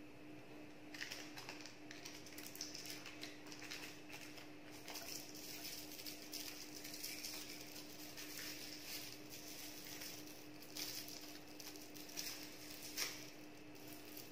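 Fingers tearing imitation crab sticks into shreds and dropping them into a steel bowl: a faint, continual soft rustling and scratching with small ticks, and one sharper click near the end. A steady low hum sits underneath.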